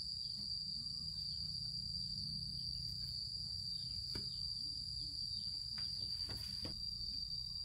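Insects chirring in one steady, unbroken high-pitched note over a low rumble, with a few sharp knocks in the second half.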